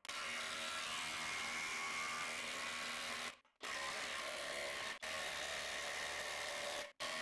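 Flex impact driver hammering a half-inch, seven-inch lag bolt into a green-treated 6x6 on its fastest setting (4450 impacts a minute), a steady buzzing hammer. It cuts off abruptly twice, about three and a half seconds in and near the end, each time starting again straight away.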